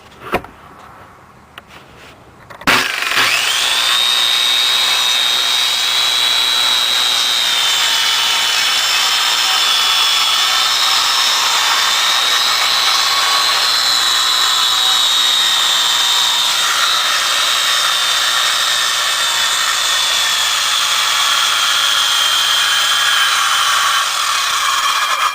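An electric power saw spins up about three seconds in and runs for some twenty seconds with a steady high whine, then stops abruptly.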